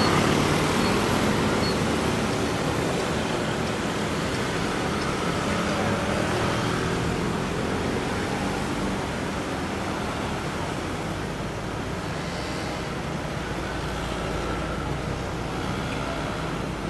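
Street traffic: motor scooters and cars running past in a steady wash of engine and road noise, a little louder at the start.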